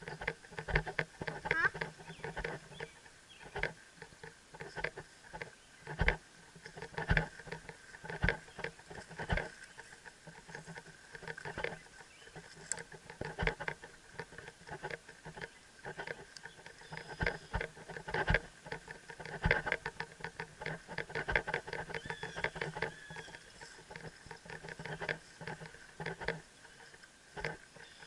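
Helmet camera rattling and clicking against the rider's helmet, jostled by the walking horse's movement: many quick, irregular clicks in clusters.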